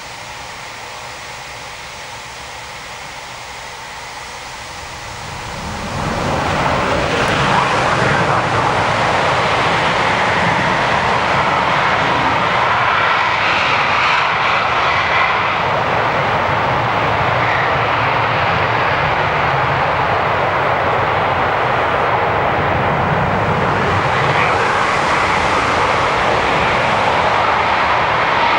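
Eurofighter Typhoon fighter jets taking off in turn, their twin EJ200 turbofan engines at takeoff power. A low, steady background noise gives way about five seconds in to a sudden rise into loud, sustained jet noise.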